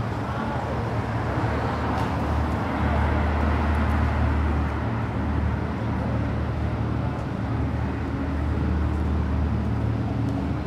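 Steady rumble of road traffic, swelling a little a few seconds in.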